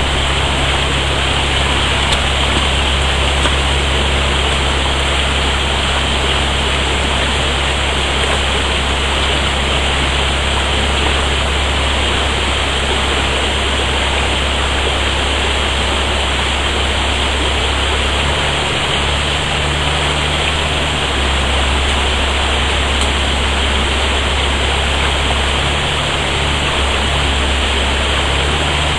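Shallow stream running fast over stones close by: a loud, steady rushing of water.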